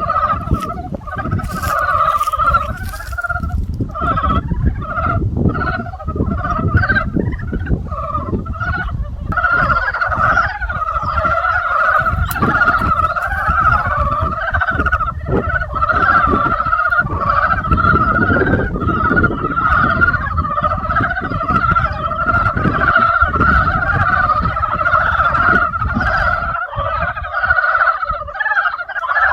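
A dense spring chorus of many frogs calling at once, their calls overlapping into a continuous trilling din, with a steady low rumble underneath.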